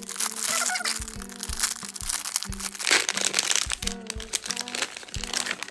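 Foil blind-box bag crinkling and crackling as it is handled and torn open, over background music with a regular beat.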